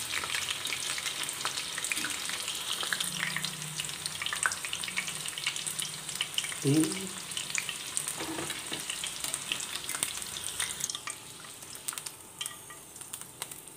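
Batter-coated chicken pieces deep-frying in coconut oil: a steady sizzle full of small pops and spits, growing quieter near the end as the pieces come out of the oil. The cook, unsure, puts the popping down to moisture from the yogurt and oats in the batter.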